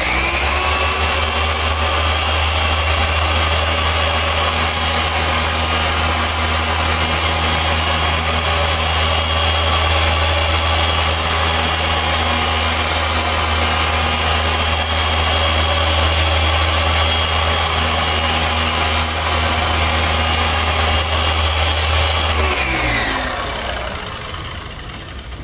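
Handheld power sander with a wet abrasive pad running against a boat's fiberglass gel coat: it spins up at the start, runs at a steady pitch for about twenty seconds, then winds down near the end.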